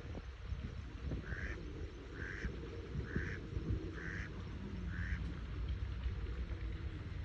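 A duck quacking five times in a steady series, about one quack a second, over low wind rumble.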